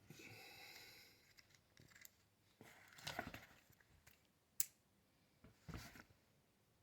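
Faint handling sounds as small batteries are taken out of and refitted into a rifle scope's battery compartment after going in backwards: soft scrapes and rustles, with one short sharp click about four and a half seconds in.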